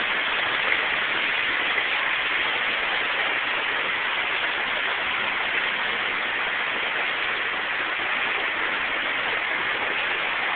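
Steady, loud rushing noise, even and unbroken, with most of its energy in the upper-middle range.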